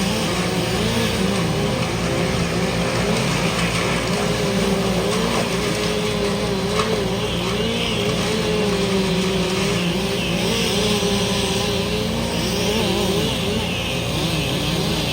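Engines running, one with a pitch that wavers up and down continuously over a steady low machine hum. A hiss grows in from about ten seconds in.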